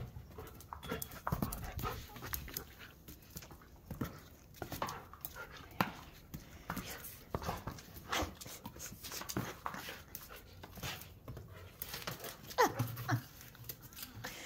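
Husky panting while playing with a tug toy, with irregular short knocks and scrapes throughout and a brief falling whine near the end.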